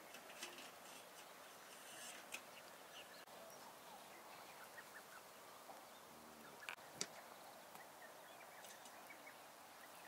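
Near silence: faint outdoor ambience with a few faint bird calls and one sharp click about seven seconds in.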